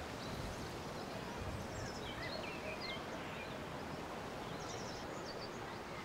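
Outdoor ambience: a steady background hiss with small birds chirping here and there, short high calls scattered through it.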